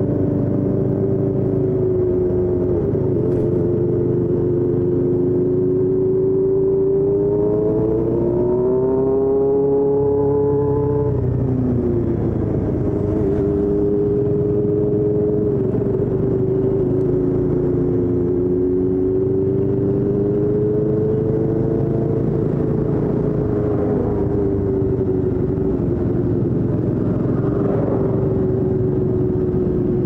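Motorcycle engine heard onboard while riding. Its note climbs about eight to ten seconds in and drops sharply near eleven seconds, then holds a steady cruising pitch that rises and falls gently.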